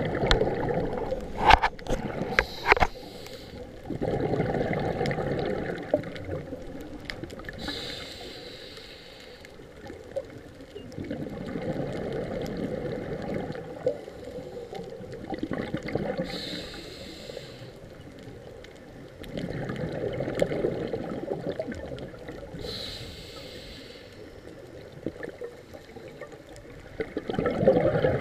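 Scuba diver breathing through a regulator underwater: a short hissing inhale, then a long rush of exhaled bubbles, repeating about every seven to eight seconds. A few sharp clicks in the first three seconds.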